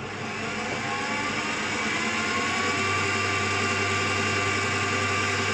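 Einhell BT-TB 13 E Digital bench drill press motor starting up and running free with no load. Its whine rises over the first two seconds or so, then holds steady. On each start the machine runs up only to its default speed of about 600–700 rpm, not the speed set before.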